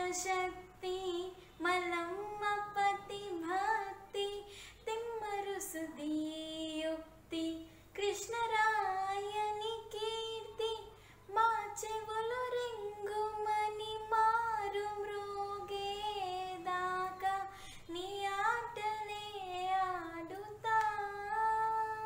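A girl singing a Telugu song solo and unaccompanied, in long held notes that bend and waver in pitch, with short breaths between phrases.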